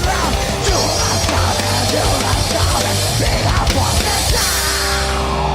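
Thrash metal band playing: distorted electric guitar with many pitch bends over drums and cymbals, then a held chord ringing out from about four seconds in.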